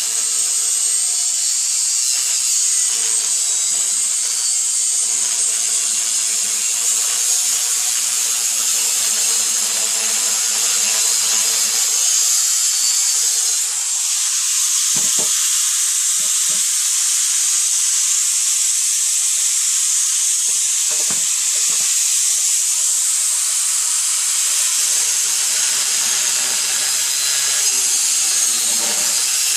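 Makita 4-inch angle grinder with a fiber metal cutoff wheel cutting through 60-year-old cast iron drain pipe: a loud, steady, high-pitched abrasive hiss.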